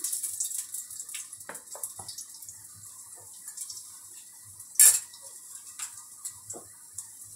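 Garlic cloves frying in hot oil in a wok, a faint sizzle with scattered small pops and crackles. About five seconds in comes a single sharp clatter of kitchenware, the loudest sound.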